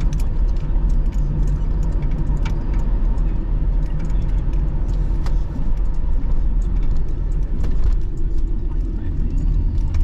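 Car driving, heard from inside the cabin: a steady low rumble of engine and road noise as it slows, with scattered light clicks and rattles.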